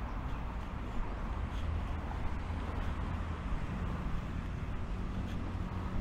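Steady low rumble of city road traffic, with a faint engine hum growing stronger near the end.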